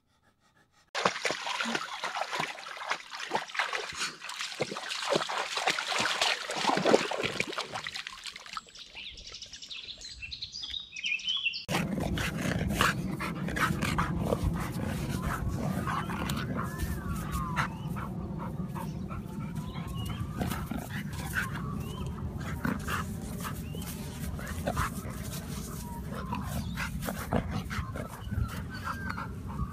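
A dog rustling through long grass. About a third of the way in the sound changes abruptly to a dog rolling and squirming in loose dirt, scraping on the ground, with a few rising and falling whines.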